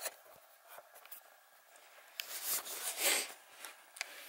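Handling noise and fabric rustling as a handheld camera is moved around while lying in bedding, with a few small clicks and two louder rustles about two and three seconds in.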